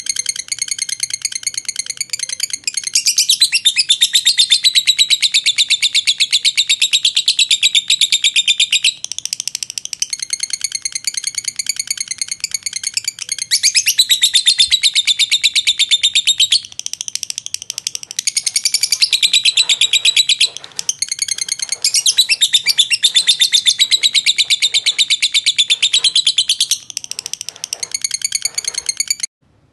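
Fischer's lovebird ngekek: a very rapid, high-pitched chattering trill kept up in long runs with only brief breaks, then cutting off suddenly near the end. This long unbroken ngekek is the song that lovebird keepers prize in contest birds.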